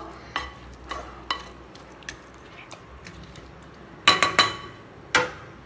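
Metal ladle stirring a watery mutton curry in an aluminium pressure cooker, scraping with light clinks. About four seconds in come three quick ringing clanks of the ladle against the pot, and one more a second later.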